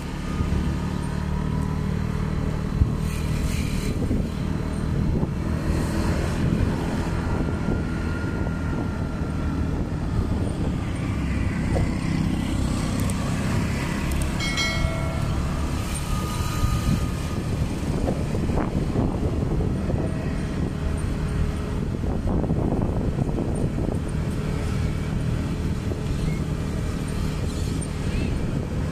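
A vehicle engine running steadily, a continuous low rumble with traffic-like noise around it.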